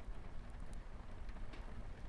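Light rain on a window over a crackling wood fire: a steady rumbling hiss with a few faint scattered pops.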